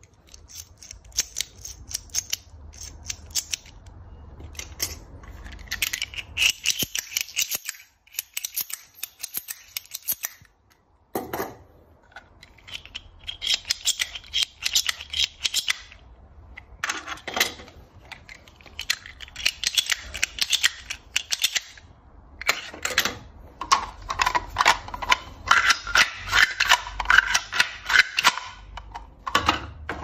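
3D-printed plastic carrot knife fidget toys being flicked open and shut: rapid plastic clicking and clacking in runs, separated by short pauses.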